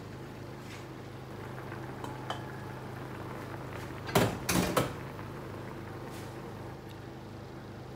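Kitchen stovetop sound of fish boiling in sauce in a pan on a gas stove: a steady low hum with faint bubbling crackle. About four seconds in, a short clatter of several hard knocks, like cookware being handled.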